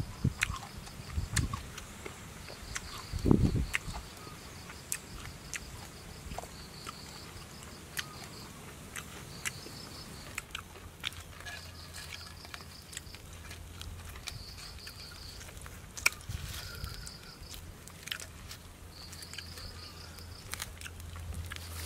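A person chewing and biting into food, with crisp clicks and crunches and one heavier thump a few seconds in. Insects trill in short, repeated pulsing bursts behind it.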